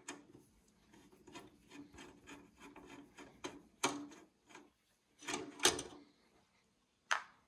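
Hand screwdriver working screws out of a Bitmain Antminer L3+'s metal case: a steady run of small clicks and scrapes, with louder knocks of metal handling about 4 seconds in, around 5.5 seconds, and once more near the end.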